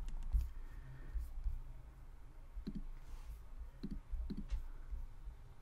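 Computer mouse clicking, a few scattered faint clicks, over a low steady hum.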